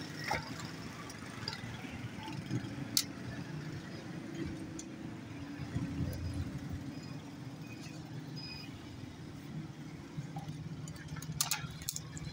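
Steady low rumble of road traffic, with a few sharp clicks and taps: one early, one about three seconds in, and a short cluster near the end.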